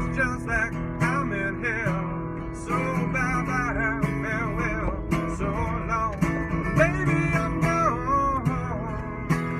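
A man sings with a wavering voice over his own strummed acoustic guitar, inside a car.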